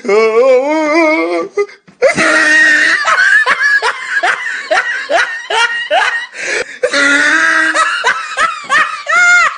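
Loud, hearty human laughter: a quick run of repeated ha-ha bursts, each dropping in pitch. It is preceded by a wavering, drawn-out voice in the first second and a half.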